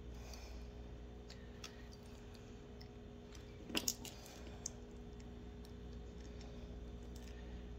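Faint small clicks of fingers handling lead split-shot sinkers on fishing line, with a sharper double click a little before the middle, over a steady low hum.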